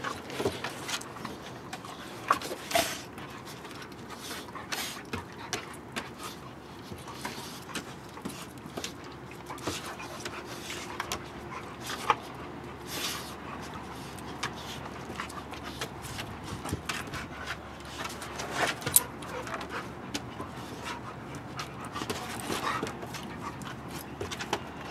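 Two dogs, a pit bull puppy and an older black dog, play-fighting at close range: panting with many short sharp jaw snaps and clicks scattered throughout, the loudest about 19 seconds in.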